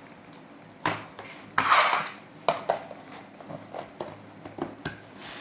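Handling noises of slime and its small plastic bowl on a table: scattered clicks and knocks, with a louder wet squish about two seconds in.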